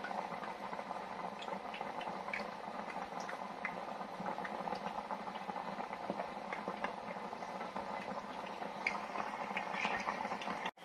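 Chips deep-frying in hot oil in a mini deep fat fryer with its lid closed: a steady bubbling sizzle with scattered small pops and crackles. This is the first fry at about 160 °C.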